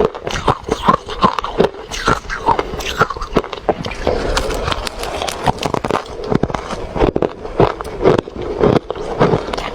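Close-miked chewing of refrozen crushed ice: a rapid, irregular run of sharp crunches, several a second, with a denser grinding stretch midway.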